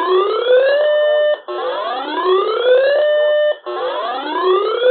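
Electronic emergency alert tone: a whooping tone that climbs in pitch for about a second, holds steady for a moment, then breaks off and starts again, roughly every two seconds.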